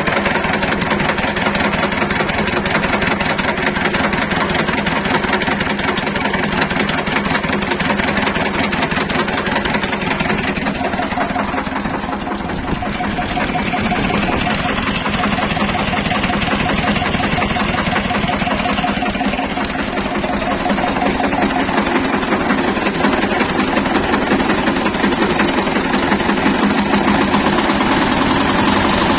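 Shifeng SF138-2 diesel tractor engine running cold, with a steady knocking beat. It eases off briefly twice. The knock has been softened by a shim under the injection pump that retards the injection timing.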